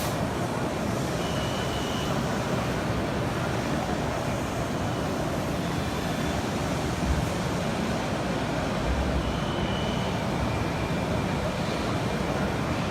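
Steady background din of a large, busy machine-tool exhibition hall, an even rushing noise with no single source standing out. A couple of faint short high tones and low bumps come and go.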